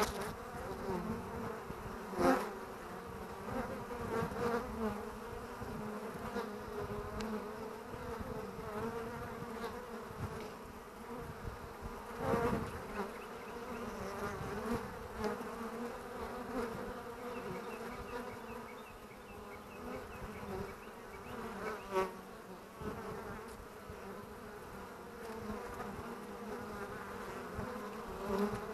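Honeybees buzzing at a hive entrance: the steady hum of many bees flying in and out. Now and then a single bee passes close and its buzz swells louder for a moment, around 2, 12 and 22 seconds in.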